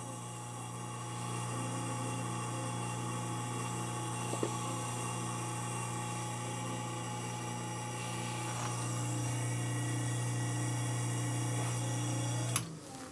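Newly installed Whirlpool garbage disposal's motor running with a steady hum, sounding normal, then stopping suddenly with a click near the end as it is switched off.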